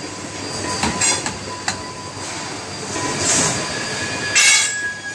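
Bar-threading machine running as a steel bar is threaded, a steady metallic squeal with several sharp clanks in the first two seconds and a louder screech about four and a half seconds in.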